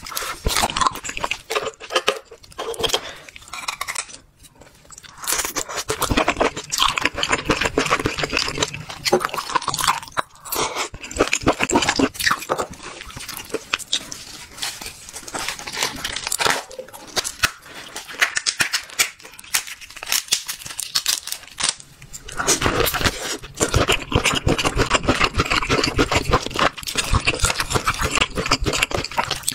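Close-miked chewing and crunching of spicy seafood, including a large prawn: a dense, wet crackle of bites and chews, with brief pauses about four and ten seconds in.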